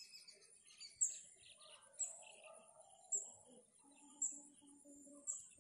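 Birds calling: a short, high, falling chirp repeated about once a second, with a run of five low, evenly spaced hoots from another bird about four seconds in.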